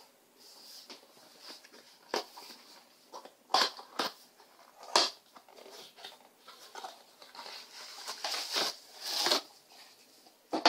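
Hands handling cardboard packaging: a box sleeve and inner tray sliding and scraping, with a few sharp taps and knocks. Near the end comes a longer crinkling of plastic bubble wrap.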